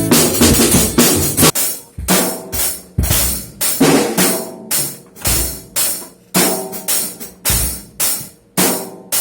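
Acoustic drum kit played loud. A busy stretch of fills for the first second and a half, then single accented hits of bass drum with crash cymbal about twice a second, each left to ring out.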